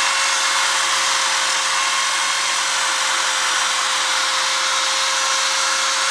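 Corded electric drill running steadily at one speed, with a constant whine. An abrasive pad on a mandrel scrubs the rough coating off a motorcycle wheel spoke.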